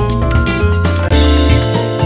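Background music with a steady beat and a bass line under held instrument notes.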